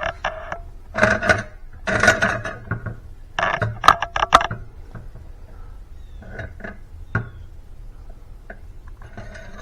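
A utensil scraping and clinking against a bowl as mashed potatoes are scooped out, with a few sharp clinks about four seconds in, then quieter small taps.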